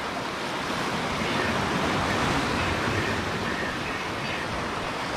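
Ocean surf washing and churning over shoreline rocks, a steady rush of water.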